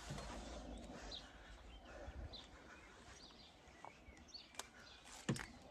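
Faint bird chirps over low background noise, with a few sharp clicks in the second half, the loudest about five seconds in.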